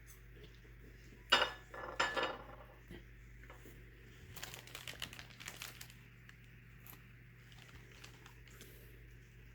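Kitchenware clattering: two sharp clinks with brief ringing about a second and two seconds in, then lighter clicks and handling noise near the middle.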